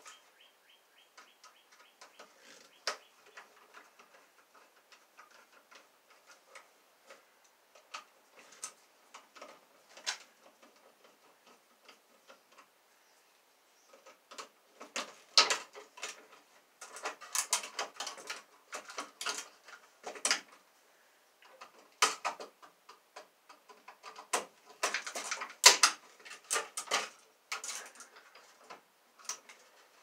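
Small clicks and ticks from a screwdriver working on an electrical outlet's terminal screws and the wires being handled at the box. There is a run of fine, rapid ticks at first, then scattered sharp clicks that become louder and more frequent from about halfway through.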